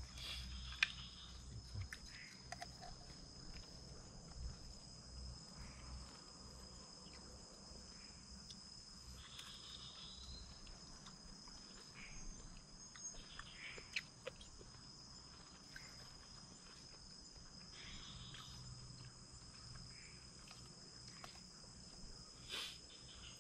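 Night-time jungle insects, a steady high-pitched chorus of several even tones. Now and then there are light clicks and taps of utensils on cups and a pot.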